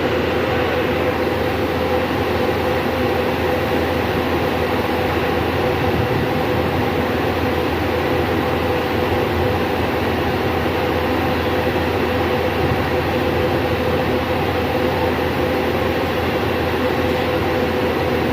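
Automatic vehicle washing machine running: a steady, unbroken mechanical hum with a faint steady tone through it.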